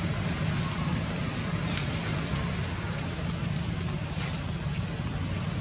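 Steady low hum under a constant hiss, with a couple of faint short sounds about two and four seconds in.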